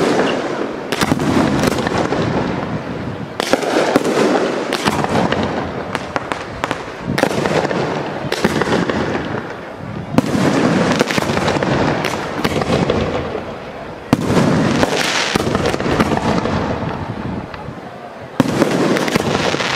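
Aerial firework shells bursting one after another: sharp bangs every second or two, each followed by a rumbling, crackling echo that fades before the next.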